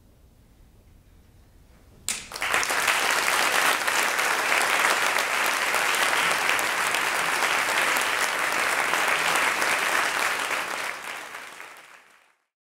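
Concert audience applauding, breaking out suddenly about two seconds in after a brief hush, holding steady, then fading out near the end.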